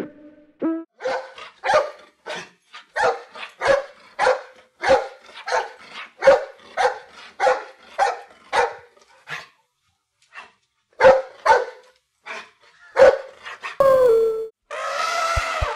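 An animal barking: a run of short barks about two a second, a pause, then a few more spaced barks. Near the end comes a different, longer, falling call and a harsher drawn-out sound.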